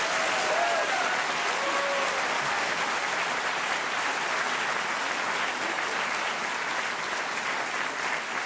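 A theatre audience applauding steadily in a dense patter of many hands clapping, with a few brief cheers in the first couple of seconds. The clapping eases slightly near the end.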